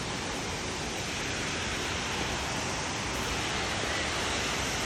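Steady rush of falling water from a waterfall, an even noise with no breaks.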